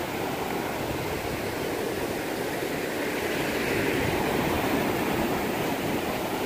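Ocean surf washing up a sandy beach: a steady rush of breaking waves and foam, swelling a little midway.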